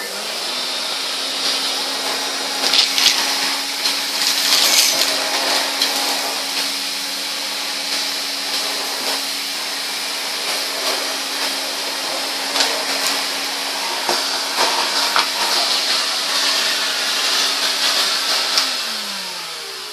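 1970s Hoover Constellation vacuum cleaner switched on and running steadily, its motor humming under a loud rush of air, with scattered ticks and rattles as rocks and bits of paper are sucked up. Near the end it is switched off and the motor winds down, its pitch falling.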